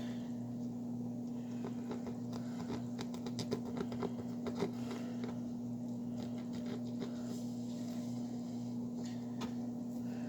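Knife cutting into crusty bread, a run of small crackling clicks about three to five seconds in, over a steady low hum.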